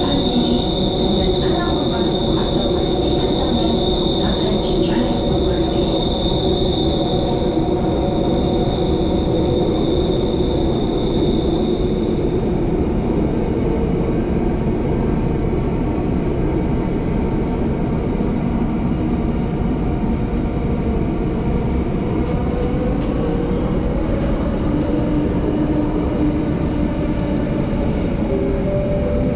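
Singapore MRT train running through a tunnel, heard from inside the carriage: a loud, steady rumble of wheels on the track with a high, steady squeal for about the first twelve seconds and a few sharp clicks early on. Several steady motor tones shift in pitch in the last few seconds as the train changes speed.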